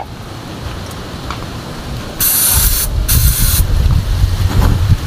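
Aerosol contact cleaner sprayed in two short hissing bursts about two seconds in, being used to drive out moisture suspected of causing the diesel engine's misfire. A loud low rumble starts during the sprays and carries on.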